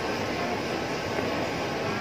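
Steady background din of an indoor shopping mall, an even wash of noise with no distinct events.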